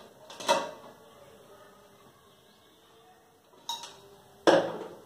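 Stainless steel mixer jar and lid clanking as they are handled and set down: a few separate metallic knocks, the loudest about four and a half seconds in.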